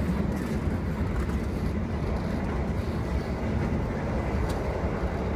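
Steady low rumble of an executive-class passenger train coach in motion, heard from inside the coach: wheels running on the rails and the coach's running noise. A faint click about four and a half seconds in.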